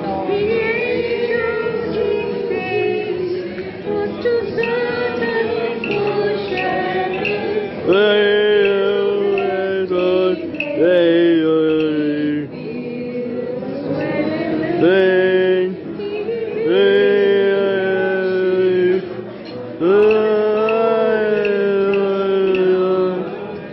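A voice singing a slow melody in long held notes, each phrase sliding up onto its note, with short breaks between phrases.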